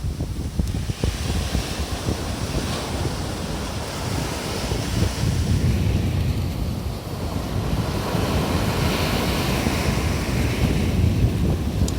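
Sea waves breaking and washing up on the shore, the surf swelling and easing every few seconds, under heavy wind buffeting on the microphone.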